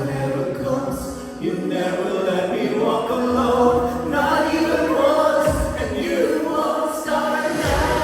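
Live worship band music with voices singing sustained notes over the band; deep bass notes swell in about five and a half seconds in and again near the end.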